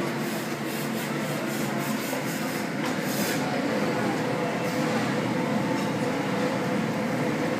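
Steady restaurant background noise, a dense even hum, with a few faint clinks about three seconds in.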